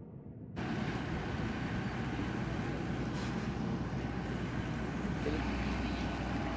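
Muffled, low drone of an airliner cabin, cut off about half a second in by the louder, steady noise of a jet airliner on the apron, with a thin high whine over it.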